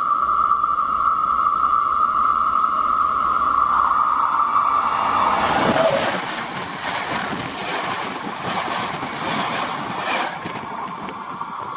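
An express train hauled by an EP09 electric locomotive runs at speed directly over the microphone lying between the rails. A steady high tone drops in pitch as the locomotive reaches the microphone about six seconds in. Then the wheels clatter fast over the rails for about four and a half seconds as the carriages pass overhead, before the sound fades.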